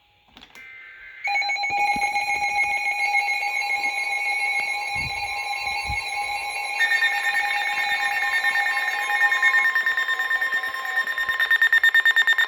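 Emergency Alert System attention tones announcing a severe thunderstorm warning. Loud, steady electronic tones start about a second in, another tone joins about halfway through, and the sound turns to rapid beeping near the end.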